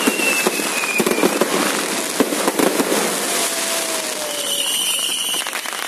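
Aerial fireworks display: dense crackling and popping of bursting shells and crackle stars, with a few whistling tones over it, one of them falling in pitch midway.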